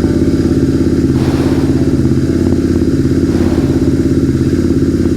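Motorcycle engine running steadily at low speed in gear, spinning the rear wheel and freshly lubricated drive chain.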